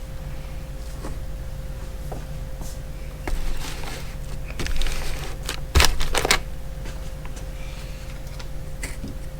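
Metal ratcheting box-end wrenches handled, giving scattered sharp clicks and clinks, with denser clusters of clicking about halfway through, over a steady low hum.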